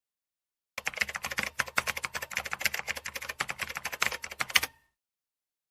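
Computer keyboard being typed on: a quick run of key clicks starting about a second in and stopping abruptly about four seconds later.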